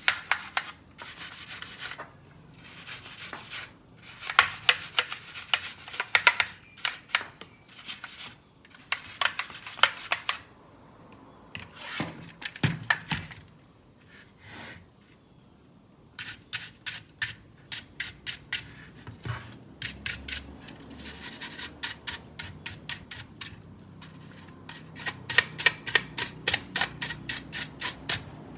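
Scrubbing: rapid back-and-forth rubbing strokes on a hard surface, several a second, in runs broken by short pauses, with a quieter stretch about halfway through.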